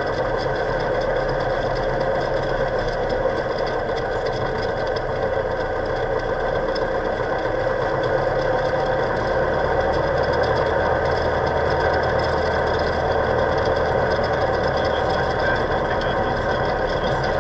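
Cessna 172's piston engine and propeller running steadily at low taxi power, heard from inside the cabin; the low drone shifts in pitch about nine seconds in.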